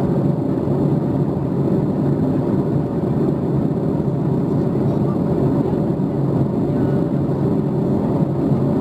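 Steady cabin noise inside a Boeing 737 MAX 8 in flight on approach: an even rush of airflow and the CFM LEAP-1B engines, heavy in the low end.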